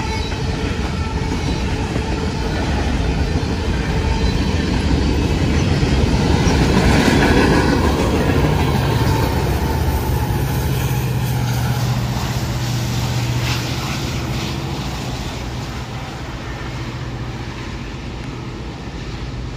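Freight train passing close by: covered hopper cars rolling past with wheel clatter, loudest about seven seconds in. Then a diesel locomotive, Norfolk Southern's Savannah & Atlanta heritage unit 1065, an EMD SD70ACe, passes with a steady low engine drone that fades near the end.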